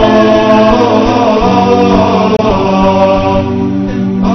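Programme intro music of chanted vocals, several voices holding long notes in harmony.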